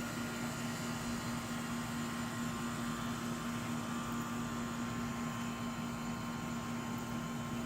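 A steady machine hum: a constant low tone with fainter higher tones over a soft hiss, unchanging throughout.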